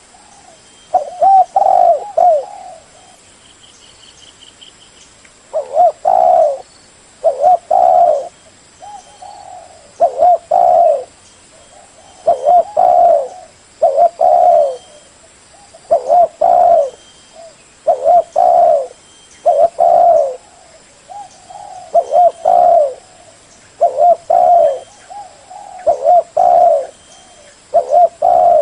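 Spotted dove cooing: loud, low, repeated coo phrases, one about every two seconds. This is the song used as a decoy call to lure wild spotted doves. Faint chirps of a small bird sound in the background.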